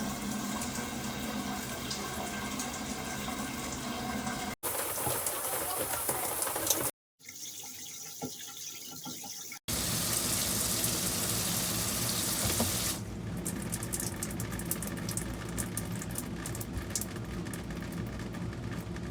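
High-pressure handheld RV shower head spraying water. The spray sound breaks off and changes character abruptly several times.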